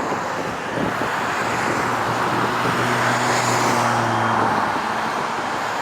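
Road traffic: a motor vehicle's engine hum and tyre noise swell as it passes, peaking about halfway through over steady traffic noise.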